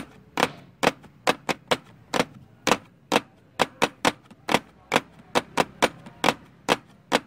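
A rapid series of sharp clicks, about three a second and unevenly spaced, over a faint low hum.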